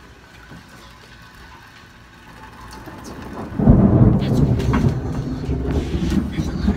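Thunder: a low rumble breaks in suddenly about three and a half seconds in and keeps rolling.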